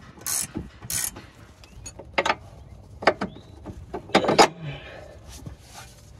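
Hand ratchet clicking in two short runs while tightening a Volvo 740's outer tie rod end nut, followed by several sharp metallic knocks as front suspension parts are worked on.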